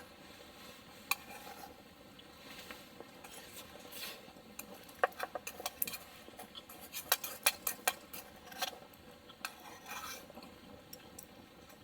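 Camp cookware and utensils being handled: scattered sharp clinks and light scrapes of metal, one about a second in and a busier run of clinks in the middle.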